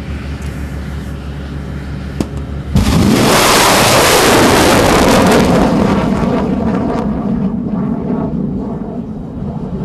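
S-125 surface-to-air missile launching: a steady low hum, then a little under three seconds in the sudden loud blast of its booster igniting. The blast turns into a sustained rocket roar that slowly fades as the missile climbs away.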